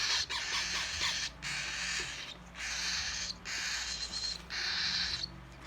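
Baby cockatiel's harsh, raspy food-begging calls while being hand-fed: about five rasps, each about a second long, with short breaks between.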